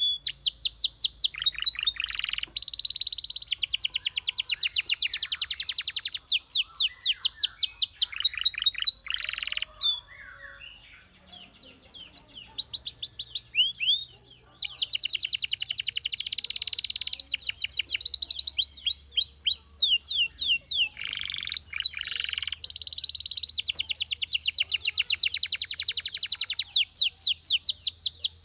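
Belgian canary singing: long, fast trills of rapidly repeated chirps, broken by a pause of about two seconds partway through before the song starts again.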